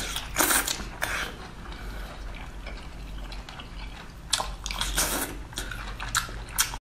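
Close-up wet eating sounds of baby octopus in sauce: several short slurps and sucks, with chewing between them.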